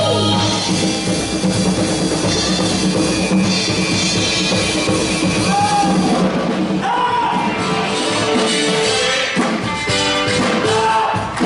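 Live band playing an up-tempo instrumental break built around a conga drum solo, with a drum kit keeping time underneath.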